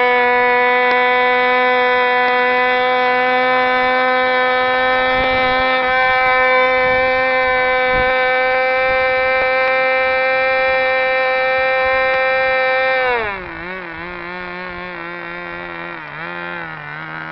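Model airplane's small piston engine running at a steady, high-pitched full throttle during a ground run with the plane held by its tail. About 13 seconds in it is throttled back sharply to a lower, slightly uneven idle.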